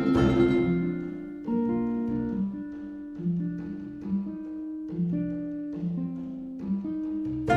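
Instrumental music: a full, loud passage gives way about a second and a half in to a quieter stretch of held notes, and the full sound comes back at the very end.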